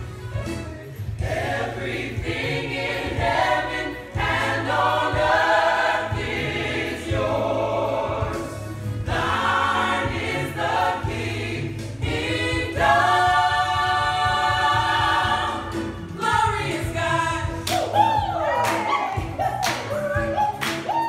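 A gospel choir of mixed voices singing in harmony over a steady low backing note; near the end voices slide up and down in runs.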